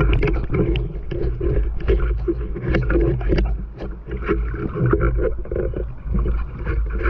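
River water sloshing and splashing close to the microphone as a wader handles a speared snakehead fish at the surface, with many small irregular splashes and a heavy low rumble.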